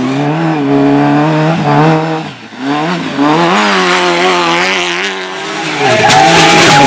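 Rally car engine revving hard, pitch climbing and dropping through gear changes and lifts, with a brief drop about two and a half seconds in before it picks up again. A steady high squeal joins near the end, typical of tyres sliding.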